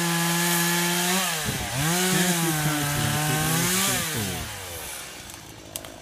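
Chainsaw running at full throttle while cutting through a tree trunk. Its pitch dips briefly about a second and a half in, then falls back toward idle and gets quieter near the end.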